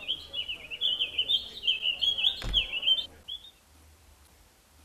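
Cartoon bird tweeting sound effect: quick high chirps twittering for about three seconds, then stopping, with a single dull thump about two and a half seconds in.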